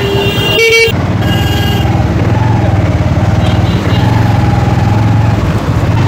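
Motorcycle engine running steadily at riding speed, with a vehicle horn tooting briefly about half a second in and a thinner, higher beep just after.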